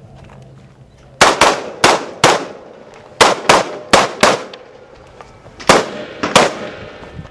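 Gunshots during a timed practical-shooting string: about ten shots, mostly fired in quick pairs, beginning about a second in, with a pause of about a second between the last pairs.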